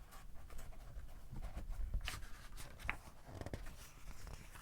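Faint paper rustling with a few small clicks, as the pages of a picture book are handled and turned, in a small room.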